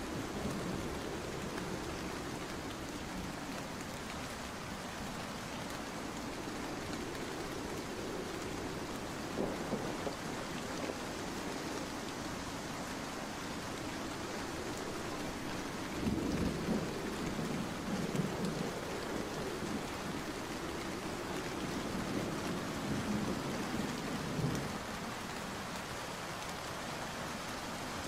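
Steady heavy rain hissing down, with a low rumble swelling up three times, around a third of the way in, past the middle and toward the end.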